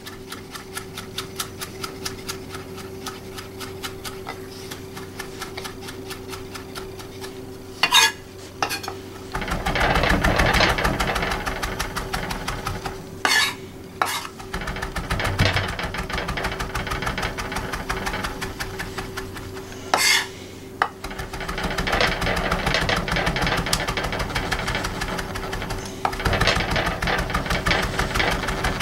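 Global stainless chef's knife rapidly chopping fresh basil on an end-grain wooden butcher block: a fast run of light taps of the blade on the board, several a second, with louder, busier stretches and a few sharper knocks.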